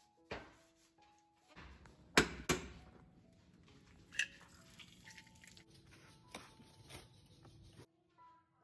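An egg cracked on the rim of a frying pan: two sharp taps, then a few softer clicks as the shell is pulled apart, over a low steady hiss. Soft background music plays throughout.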